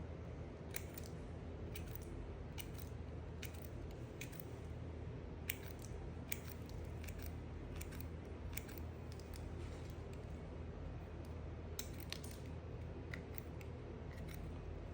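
Knife cutting into a bar of soap: crisp clicks and crunches at irregular intervals over a low steady hum.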